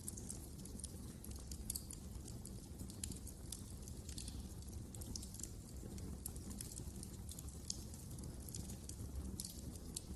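Fire in a fireplace crackling: irregular sharp snaps and pops, several a second, over a steady low rumble of the flames.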